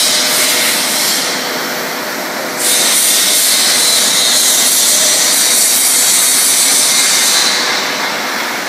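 BOPP tape coating machine running: a loud, steady hiss over a faint even hum. The hiss dulls for about a second and a half twice, about a second in and near the end.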